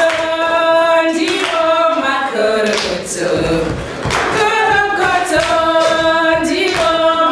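A group of women singing together without accompaniment, in phrases of long held notes.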